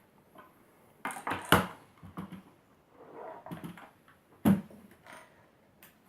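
Handling noise of a mechanical keyboard and its packaging: irregular knocks and clatter of hard plastic being moved and set down, louder knocks about a second and a half in and again near the end, with a brief rustle in between.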